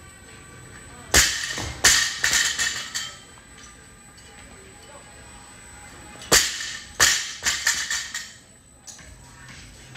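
Loaded barbell with bumper plates dropped from overhead onto the gym floor after a snatch, twice, about five seconds apart. Each drop lands with a loud bang and bounces once, and then the plates rattle as the bar settles.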